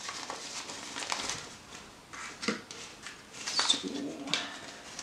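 Paper banknotes rustling and flicking as a stack of bills is riffled through and laid into slots, with a few crisp snaps of paper.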